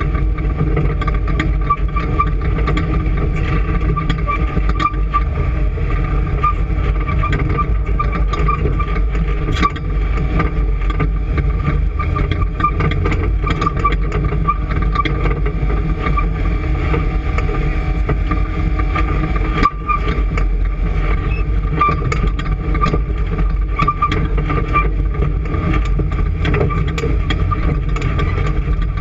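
Engine running steadily and loudly, with a constant high whine and frequent light ticks over a low rumble.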